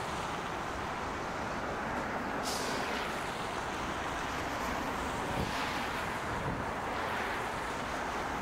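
Steady outdoor ambient rushing noise, like wind or distant traffic, with a brief hiss about two and a half seconds in.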